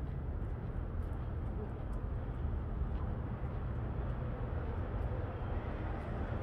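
Steady low rumble of city street traffic, with a faint engine hum joining in near the end as a vehicle approaches.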